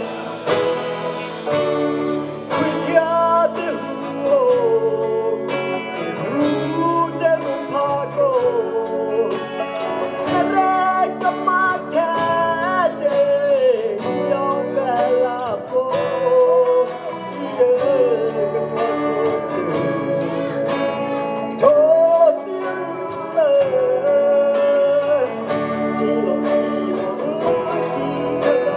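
A man singing a melody live with a band: drum kit, electric guitar and bass guitar, with steady drum beats throughout.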